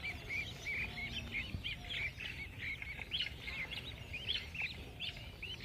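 Budgerigars chirping: a dense, unbroken run of short, high, arching chirps, several a second.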